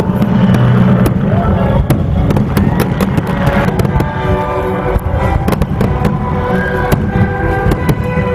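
Aerial fireworks shells bursting one after another, many sharp bangs in quick succession, with music playing under them.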